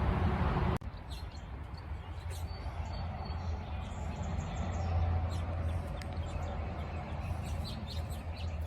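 Outdoor background: faint birds chirping over a steady low hum. A loud rushing noise, like wind on the microphone, cuts off suddenly about a second in.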